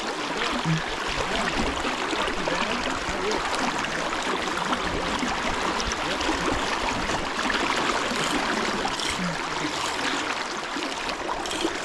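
Fast-flowing river water rushing around a wading angler's legs close to the microphone, a steady, even wash of water.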